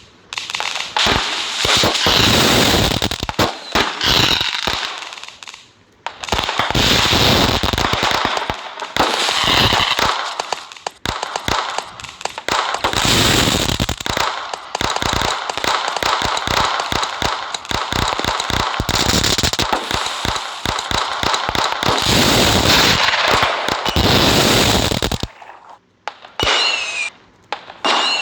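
Diwali firecrackers going off in rapid, dense crackling volleys, in several long spells of a few seconds each with brief pauses between them.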